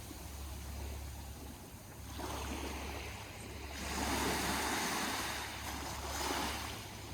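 Aegean Sea waves washing, the noise of the water swelling and fading with surges about two, four and six seconds in, over a steady low rumble.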